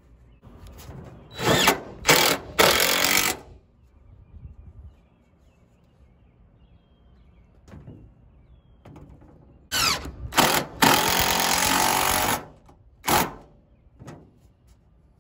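Cordless drill driving screws through corrugated tin roofing into wooden framing. It runs in two sets of short bursts, each ending in a longer run of about a second.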